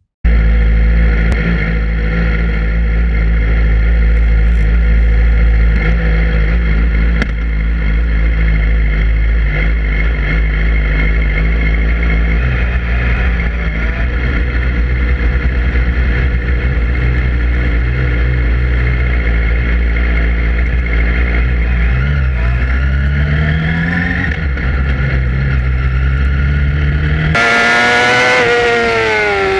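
Yamaha R6 sport bike's inline-four engine idling steadily, with a few short blips of the throttle. Near the end the sound cuts to the engine at high revs on track, its pitch sliding down as the bike slows.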